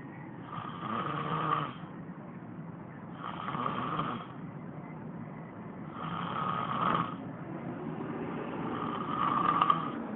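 A sleeping turtle snoring, four hissing snores about every two and a half to three seconds.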